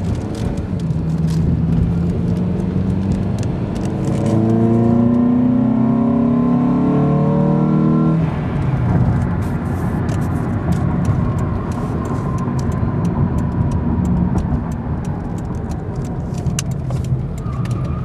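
Honda K24 2.4-litre four-cylinder with an open K&N cold-air intake, resonator removed, heard from inside the car as it accelerates. The engine note climbs steadily for about eight seconds, then drops as the automatic transmission upshifts, and settles into steady running with road noise.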